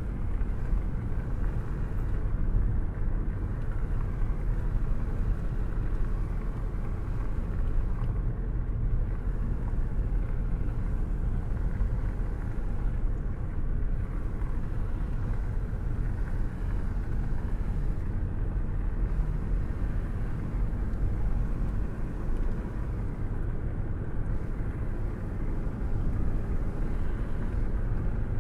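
Steady rain with a constant low rumble underneath. It sounds muffled, with little high hiss.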